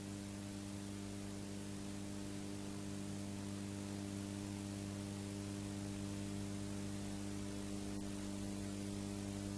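Steady electrical mains hum with a stack of steady overtones, under an even layer of hiss.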